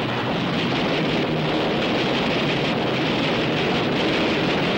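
Propeller aircraft engines droning steadily under a wind-like rush of noise, with a faint low hum and no change in level.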